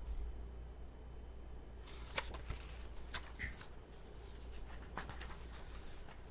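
Paper rustling and light clicks as a picture-book page is handled and turned, starting about two seconds in, over a low steady hum.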